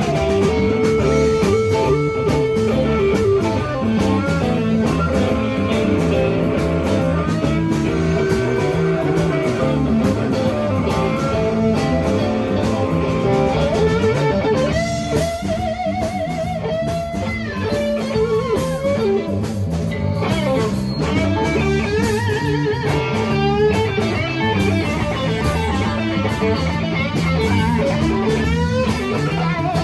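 Live blues band playing an instrumental passage: electric guitar lead with bent, wavering notes over bass guitar and drums.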